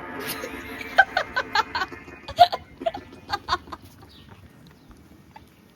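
A person making loud vocal noises: a drawn-out sound, then a run of short rhythmic bursts, about five a second, that fades out a little under 4 seconds in.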